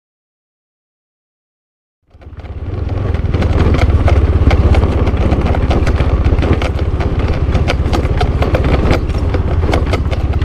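Motorcycle engine running as the bike is ridden along a dirt track, with frequent short knocks over it. It fades in about two seconds in, after silence.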